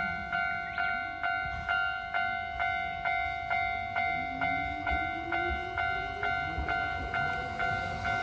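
Japanese level-crossing warning bell ringing, a bright electronic 'kan-kan' strike repeating about twice a second. About halfway through, a low whine rising in pitch joins in: an approaching train.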